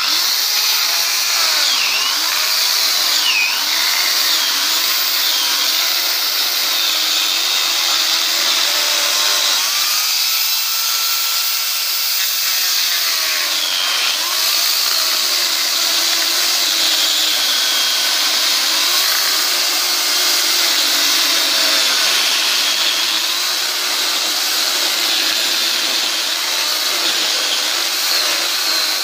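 INTERTOOL DT 2204 electric chainsaw switched on and cutting through a log, running continuously, its motor note wavering as the chain bites into the wood and recovers.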